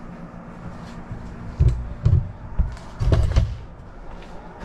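Several dull thumps and knocks come about one and a half to three and a half seconds in, over a steady low hum.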